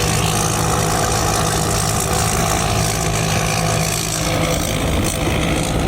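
Pan Charoen Kan Chang 2020 rice combine harvester's engine and machinery running steadily at working speed, with a constant low hum that eases slightly about four seconds in.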